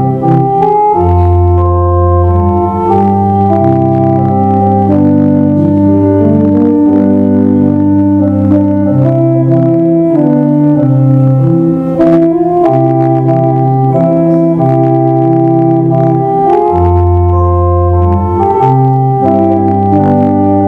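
Slow organ music: loud sustained chords that change every second or two.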